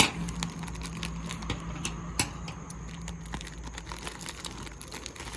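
Packaging being handled: irregular small clicks and light crinkling as plastic-wrapped items are picked out of a mailer, with one sharper click about two seconds in.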